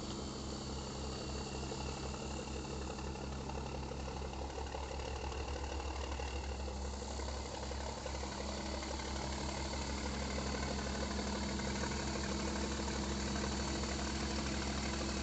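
A boat's engine running steadily with a fast low throb, a little louder from about two-thirds of the way through.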